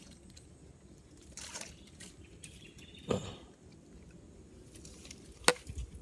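Handling noises of an airgun: rustling and a dull knock about three seconds in, then one sharp click about five and a half seconds in, followed by low thumps.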